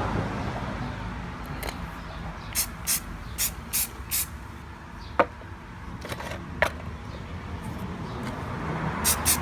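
Aerosol spray-paint can of flat primer hissing out in short quick puffs a few tenths of a second apart, with a sharp click twice about midway. The can is spitting rather than spraying evenly.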